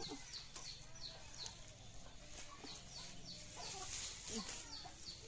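Chickens clucking softly among quick high, falling chirps repeated two or three times a second.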